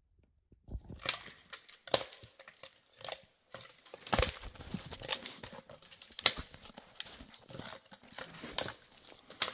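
Irregular rustling and crunching with sharp snaps and clicks, starting about a second in after dead silence.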